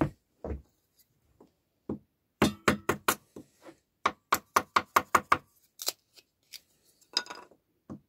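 Kindling being made: thin wooden slats split into sticks with a knife over a wooden board, giving a series of sharp clicks and cracks. They come in two quick runs, about two and a half and four seconds in, the second at about five a second, with scattered single clicks after.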